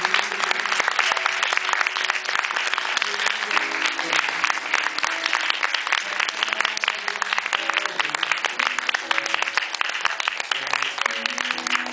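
A large audience applauding steadily with dense clapping, over background music playing held notes.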